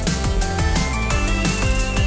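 Electronic dance music with a fast, steady beat and a deep kick drum.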